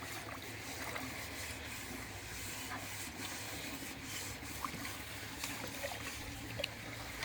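Dishes being washed by hand: steady scrubbing and rubbing with water, with a few faint clicks of utensils.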